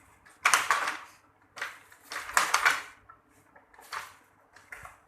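Traditional hand-operated sarong loom clattering in about five irregular bursts as it is worked.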